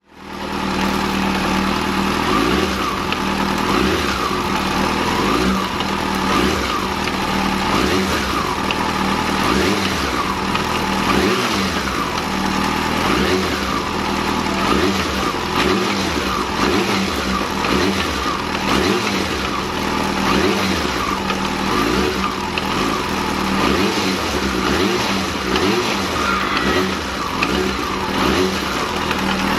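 Yamaha FZ6-S inline-four engine running and revved in short repeated throttle blips. This is the test for a knock on sharp throttle, which the owner traces to the clutch basket in the gearbox near the front sprocket.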